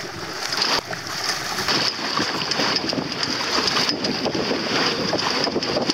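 Water rushing and lapping against the hull of a small sailboat under way, with wind blowing on the microphone.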